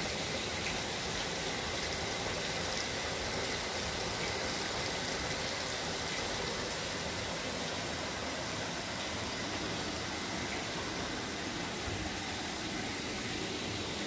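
Steady rush of water from a stream flowing through a narrow rock canyon.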